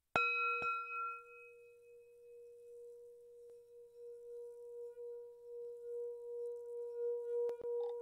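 Sampled singing bowl struck once and ringing on in a long, wavering tone that swells again in the second half. A few faint clicks near the end.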